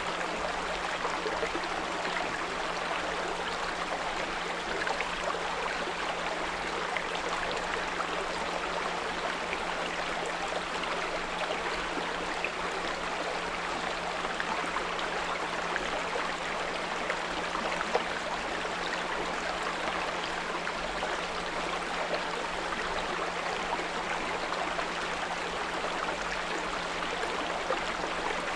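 A small brook flowing and babbling steadily, with a steady low pure tone at 174 Hz held underneath.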